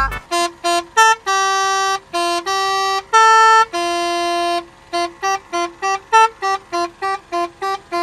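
Truck's basuri-style melody air horn, driven by a tune module, playing a melody: a few short notes, several long held notes, then a quick run of short notes from about five seconds in. The compressed air supply is starting to run low.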